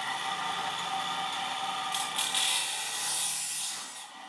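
Steady whirring hiss of a machine or power tool running, getting louder about two and a half seconds in and easing off near the end.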